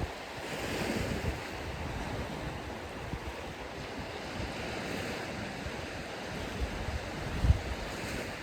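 Ocean surf washing onto a sandy beach, a steady rushing wash, with wind buffeting the microphone in low rumbles; the strongest gust comes about seven and a half seconds in.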